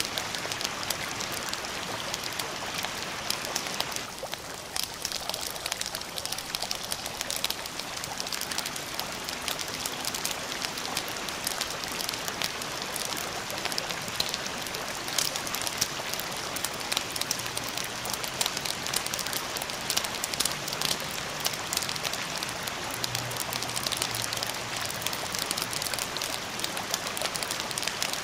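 Steady rain falling, an even hiss dotted with many small drop clicks, with a faint low hum entering in the second half.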